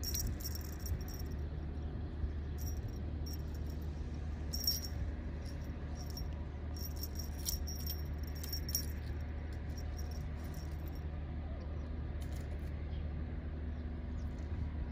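Cat wand toy jingling in short bursts as it is flicked about for a kitten to swat at, the jingles thinning out near the end, over a steady low hum.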